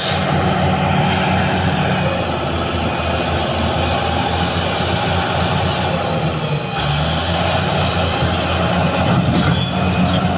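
BEML BD355 crawler bulldozer's diesel engine running steadily under load, with a thin high whine over it. About seven seconds in, the engine note and the whine change pitch.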